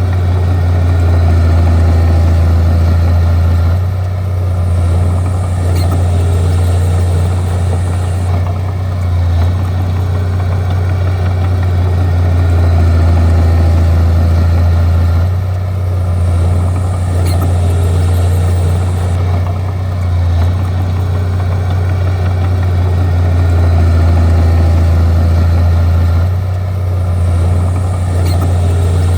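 Bulldozer's diesel engine running steadily with a deep drone that eases off briefly about every five to six seconds as it works.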